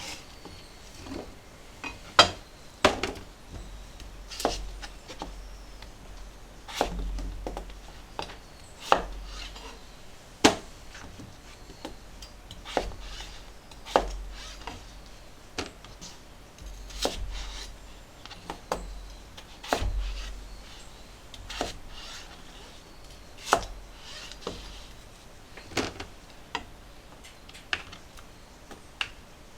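Kitchen knife cutting on a cutting board: single sharp knocks at uneven intervals of a second or two.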